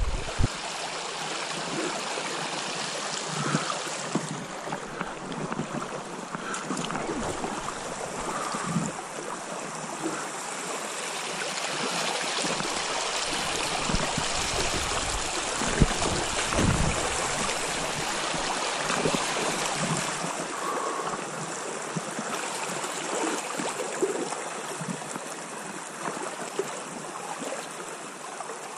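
Shallow river running over a riffle: a steady rushing, burbling water sound, with a few soft knocks and splashes now and then.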